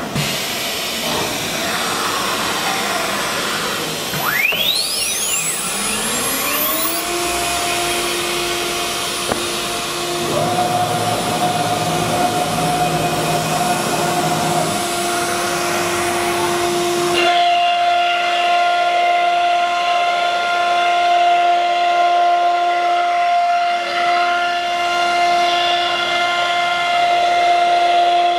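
CNC router spindle spinning up after an automatic tool change: a whine rises in pitch about four to seven seconds in, over a hiss, then holds at a steady speed. From about two-thirds of the way in it runs as a steady whine with several overtones while the machine works over a wood-panel sheet.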